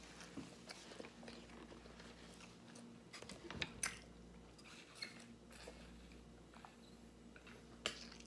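Quiet drinking from an insulated bottle: faint swallowing and mouth sounds, with a few soft clicks about three and a half seconds in and again near the end.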